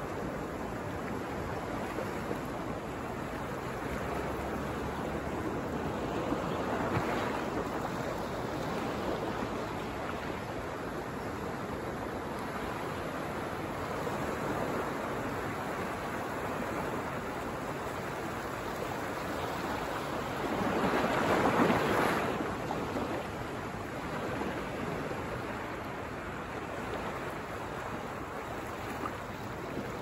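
Ocean surf: small waves breaking and washing in on a beach, a steady rush that swells with each wave, the loudest surge about two-thirds of the way through.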